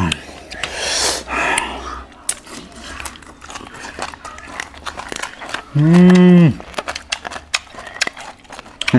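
People eating boiled pork with their fingers: chewing and lip-smacking clicks throughout, a hissing intake of breath near the start, and one short loud vocal sound, rising then falling, about six seconds in.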